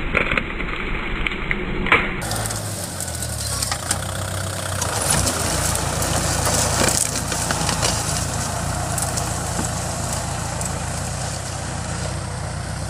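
Kubota L5018 tractor's diesel engine running steadily under load as its disc plough pushes through coffee trees and brush, with a few sharp cracks of snapping branches and the rustle of crushed foliage.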